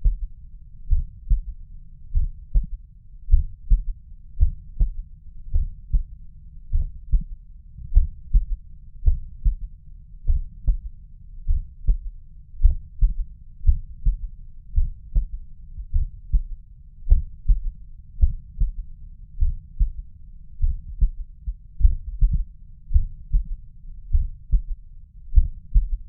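A human heartbeat heard at the mitral area (cardiac apex): steady, regular low thumps in lub-dub pairs, with a third heart sound (S3), a soft extra low thud after the second sound of each beat.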